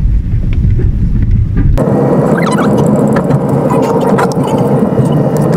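Car driving slowly, heard from inside: a low rumble of engine and road, which changes abruptly about two seconds in to a louder hissing road noise full of small crackles.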